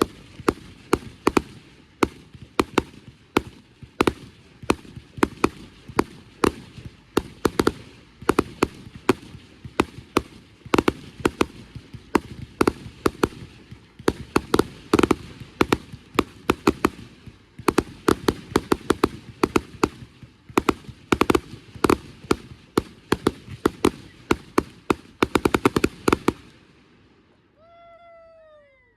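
A long run of firecrackers going off in sharp, uneven cracks, several a second, that stops suddenly about 26 seconds in. Near the end a short falling tone is heard.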